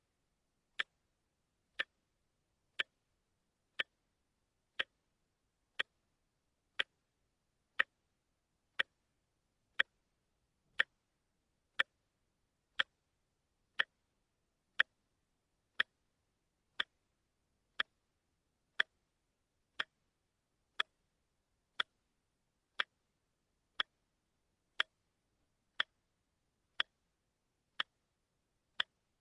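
A watch ticking steadily, one sharp tick each second, with silence between the ticks.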